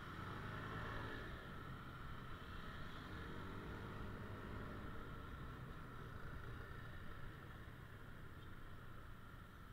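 Motorcycle engine running while riding in slow traffic, its note rising and falling in the first few seconds, over steady road noise.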